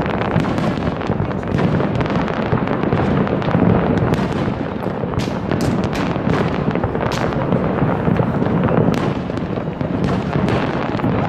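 Fireworks display in full barrage: many aerial shells bursting and crackling at once, a continuous dense run of bangs and crackle with sharp pops on top.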